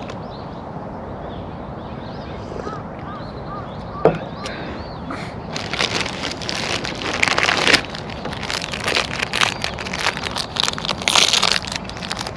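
Steady outdoor background with a few faint short chirps, a sharp knock about four seconds in, then irregular crackling and rustling from about halfway through.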